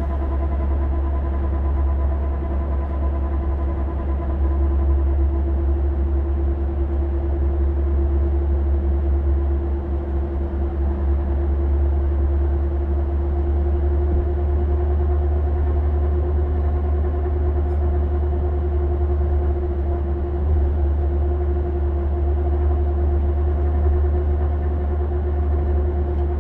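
A Volvo vehicle's radiator cooling fan running steadily over a deep engine rumble, with a continuous whine that creeps slightly up in pitch.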